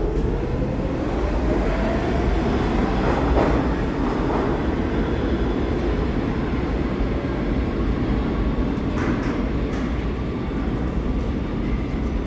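R46 subway train pulling out of the station: its motors whine upward in pitch over the first few seconds as it gathers speed, over a steady rumble of wheels on track, with a couple of knocks about three to four seconds in.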